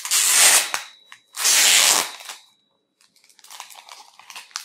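Clear protective plastic film being peeled off a tablet's back: two loud ripping peels in the first two seconds, then a quieter crinkling rustle of the loose film from about three seconds in.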